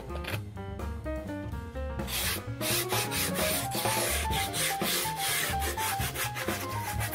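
Sandpaper rubbing back and forth on a wooden skateboard deck, a dense scratchy noise that gets louder about two seconds in, over background music.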